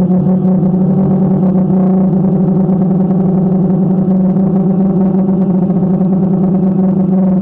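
Multirotor drone's motors and propellers humming steadily at an unchanging pitch during flight.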